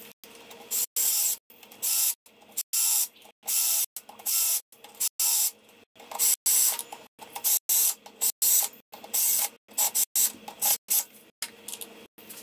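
Cordless drill/driver run in many short trigger bursts, on and off, spinning the clutch spring bolts down onto the pressure plate of a motorcycle clutch.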